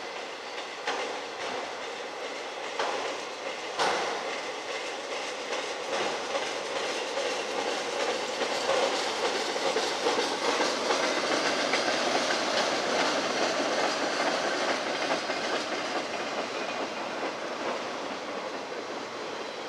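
Enclosed autorack freight cars rolling past: steel wheels on the rails, clicking over rail joints a few times in the first several seconds, then a steady rolling noise that swells and then eases off as the train's end approaches.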